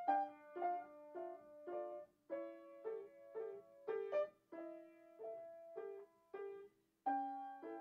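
Piano music: a gentle, even accompaniment of struck notes and chords, about two a second, each dying away before the next, with a fuller chord coming in near the end.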